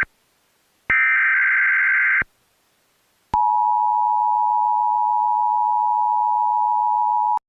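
Emergency Alert System tones. The last of the warbling digital header bursts squawks for about a second and a half. After a short gap, the steady two-tone attention signal sounds for about four seconds and cuts off abruptly.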